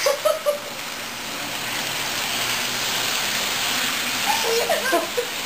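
American Flyer electric toy train running around its metal track, a steady running noise that swells as the cars come past close by. Short vocal sounds from a small child come at the start and again near the end.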